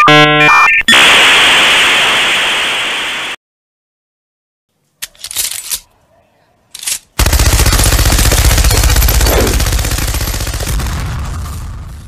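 Sound-effect sequence: a short electronic beeping buzzer, then a hiss that fades away over a couple of seconds. After a pause and a few short clicks, a machine gun fires rapidly for about five seconds, tailing off near the end.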